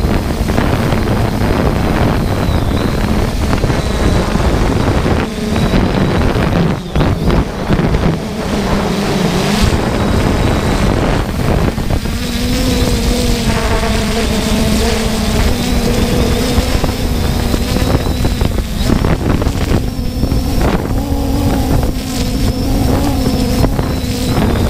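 Multirotor drone's motors and propellers humming steadily, heard from the camera on board, the hum shifting in pitch now and then. Wind buffets the microphone.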